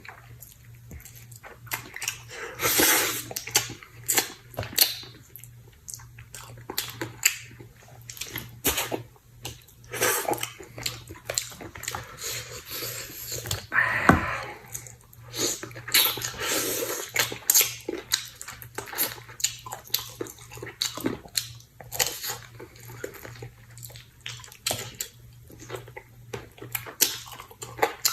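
A person eating stewed chicken with mushrooms: irregular wet chewing, smacking and slurping sounds.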